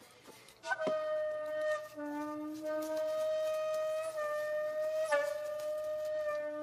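Background music of a flute-like wind instrument holding one long, steady note. It starts about a second in, together with a sharp knock.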